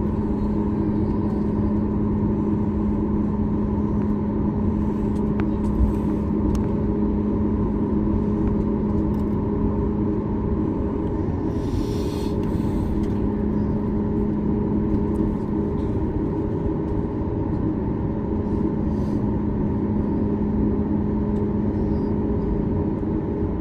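Steady drone of a Boeing 737 MAX 8's CFM LEAP-1B turbofans and airflow heard inside the cabin, with a constant low hum, and a short hiss about twelve seconds in.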